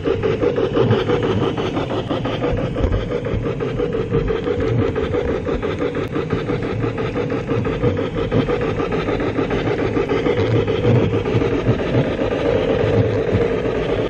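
Sound decoder of an LGB IVK G-scale model steam locomotive playing quick, steady rhythmic steam chuffing while the model runs. Under it is the rolling and gear noise of the model on the track.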